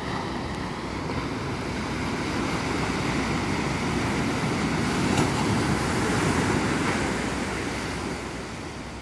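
Surf breaking and washing over a rocky, sandy shore: a steady rush that swells over several seconds and then fades near the end. A faint single click about five seconds in.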